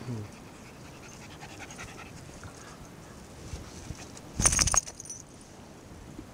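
Shiba Inu panting in the heat. About four and a half seconds in there is a short, loud burst of rustling and bumping as the dog's head brushes against the camera.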